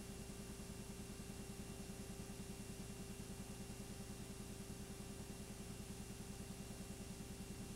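Steady low mechanical hum with a fast, even flutter and a faint hiss. It does not change with the picture, so it is noise on the film transfer rather than sound from the scene.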